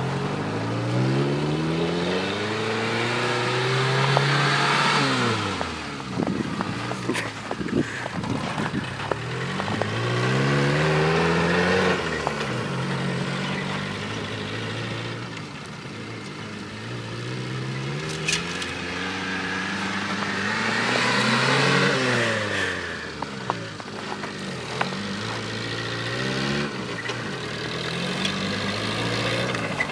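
Suzuki Samurai's engine revving as the jeep is driven through snow, the pitch climbing and then dropping about every six seconds as it accelerates and eases off.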